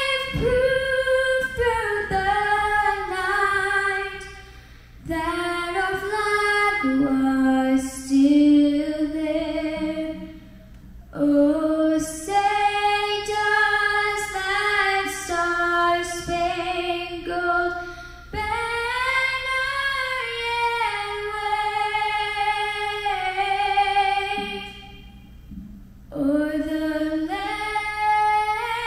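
A woman singing solo and unaccompanied through a public-address system, with the echo of a large gymnasium. Slow phrases of long held notes, broken by short breaths.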